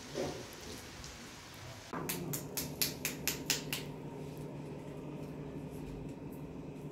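Rain falling for about the first two seconds. Then a steady low hum, with a quick run of about eight sharp clicks, roughly four a second.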